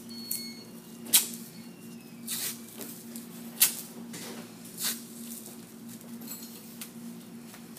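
White athletic tape being pulled off the roll and torn into strips while taping a toe: four short ripping sounds about a second apart, over a steady low hum.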